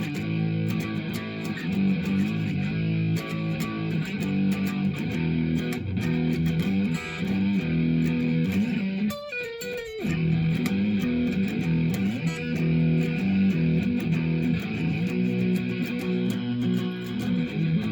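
Electric guitar playing: a 2005 Epiphone Les Paul through a Marshall Code 25 amplifier, with a short break and a falling slide about halfway through.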